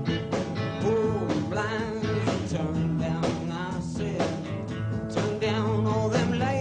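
Rock band playing a country-tinged rock song, with a singer's wavering voice over sustained instrument notes and a steady beat.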